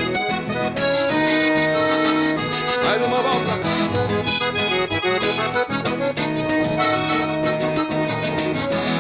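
Accordion leading an instrumental passage of gaúcho regional music, played live, with held chords and melody over a steady rhythmic accompaniment.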